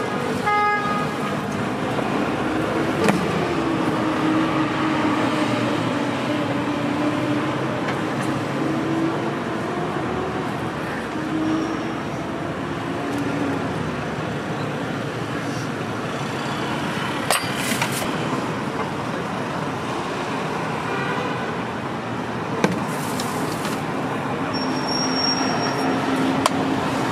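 Steady street traffic noise with a low hum of passing vehicles. A few sharp clicks or knocks stand out about three seconds in, past the middle, and again near the end.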